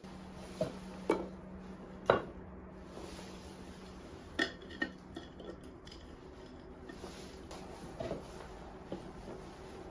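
Cookware being handled: a few separate clinks and knocks of pots and utensils, the loudest about two seconds in and again a little past the middle.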